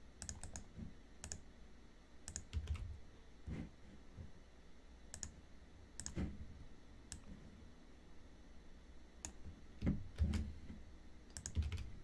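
Irregular clicks and taps of a computer keyboard and mouse, a few at a time with pauses between, some landing with a dull thump.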